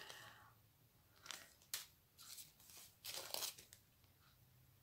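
Faint crinkling of small plastic zip-lock bags of diamond painting drills being handled, in a few short bursts.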